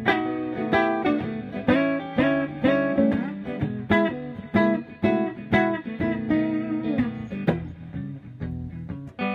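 1969 Gibson Super 400 archtop guitar playing swing blues: chords struck about once a second and left to ring, thinning out near the end.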